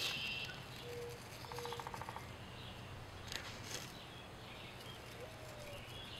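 Quiet outdoor ambience with birds chirping: a few short whistled notes and a brief rapid trill about a second and a half in, over a faint steady low hum.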